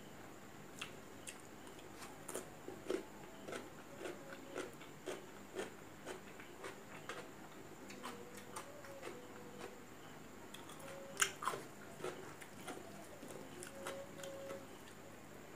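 Close-up mouth sounds of a person chewing a hand-eaten mouthful of rice and curry: irregular small wet clicks and smacks, with a sharper click about eleven seconds in.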